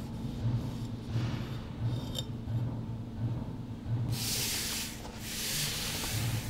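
Steel trowel scraping and smoothing sealing adhesive over a waterproofing membrane corner piece. There are light scrapes early on, then two longer hissing strokes about four seconds in, over a steady low pulsing.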